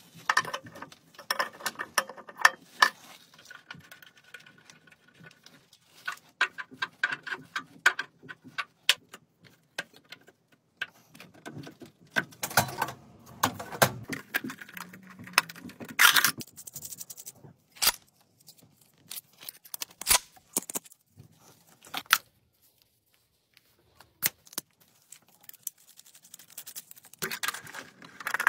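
Irregular clicks, taps and clinks of hands and tools working on metal plumbing fittings and electrical parts of an electric water heater installation, with a short near-silent pause about three-quarters of the way through.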